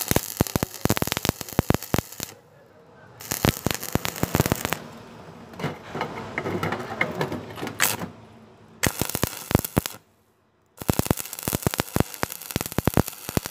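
Stick-welding arc on steel angle iron crackling and sputtering in several bursts, with short breaks as the arc is struck and broken. There is a brief near-silent gap about ten seconds in.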